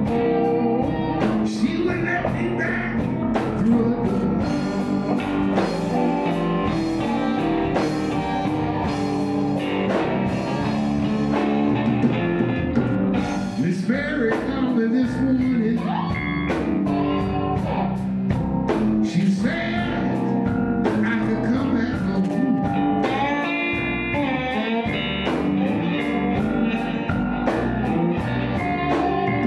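Live electric blues band playing an instrumental passage: electric guitars over keyboard and a steady drum beat, with bent guitar notes gliding in pitch partway through.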